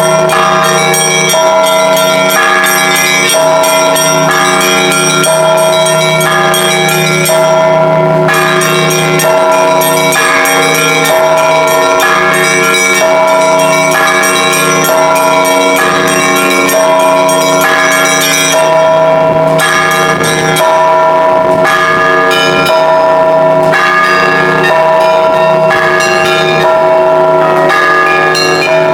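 Russian Orthodox church bells rung by a bell ringer: several bells of different pitches struck over and over in a steady repeating pattern, ringing on over a constant low tone from the larger bells.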